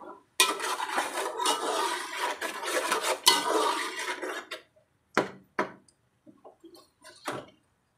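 Metal spatula scraping and stirring onions and tomatoes frying in oil inside an aluminium pot, a dense run of quick scrapes for about four seconds, followed by a few separate sharp taps of the spatula against the pot.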